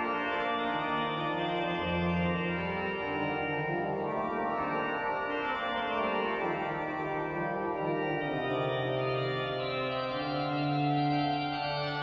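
Flentrop pipe organ (the 1976 Benjamin N. Duke Memorial Organ) playing a Baroque organ verse, several held voices over a moving bass line.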